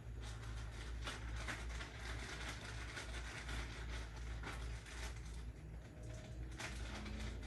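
Hands handling small plastic and rubber motorcycle parts: scattered light clicks and rustles over a low steady hum.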